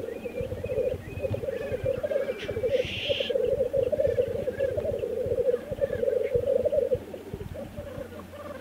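Male black grouse giving the bubbling, cooing lek song, a continuous pulsing burble that weakens about seven seconds in. There is a short hiss about three seconds in.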